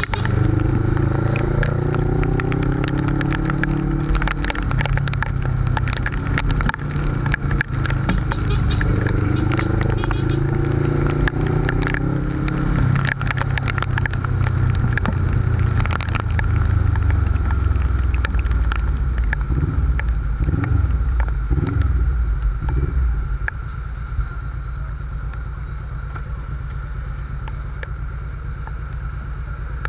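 Suzuki GS500's air-cooled parallel-twin engine pulling through the gears, its pitch climbing and dropping back with each shift. After about twenty seconds it eases off and settles to a quieter, steady run as the bike slows, with scattered sharp ticks throughout.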